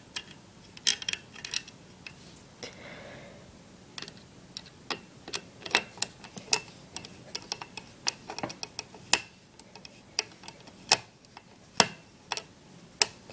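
Screwdriver driving the CPU fan's mounting screws: a run of sharp, irregular clicks of metal on metal, some with a brief ring.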